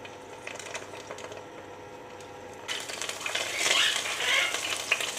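Chả lá lốt, meat rolls wrapped in betel leaves, frying in hot oil in a pan. After a few faint clicks, a sizzle starts about two and a half seconds in and swells.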